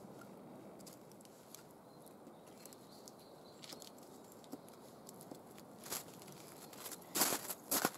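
Crunching and rustling from a person moving about in snow and handling a log: scattered small clicks at first, then a few louder crunches near the end.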